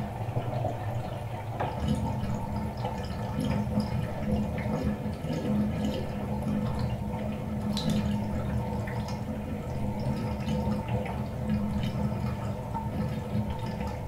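Fiberglass bathtub draining: a steady, low rush of water going down the drain, with scattered small drips and clicks, picked up partly through a contact mic on the outside of the tub. The low rush grows fuller a couple of seconds in.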